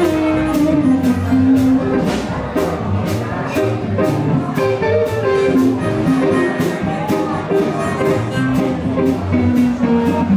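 Live band music: electric and acoustic guitars over a drum kit keeping a steady beat, with a lead line of held notes that slide from pitch to pitch.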